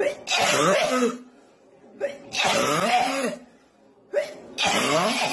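Three hoarse, breathy vocal outbursts from a person, each lasting about a second, with short pauses between them.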